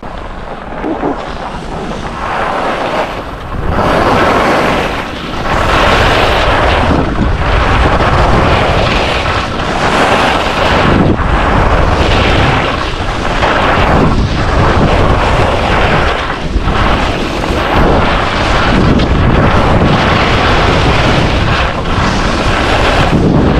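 Black Crows Atris skis carving fast on hardpack groomed snow: the edges scrape and rasp, swelling and fading with each turn every one to two seconds. Heavy wind noise buffets the microphone throughout.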